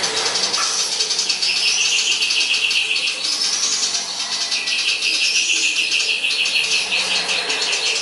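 A caged sirtu (common iora) singing a continuous song: repeated high rising phrases alternating with long, rapid chattering trills. The chatter is the fighting house sparrow call that it has learned as part of its song.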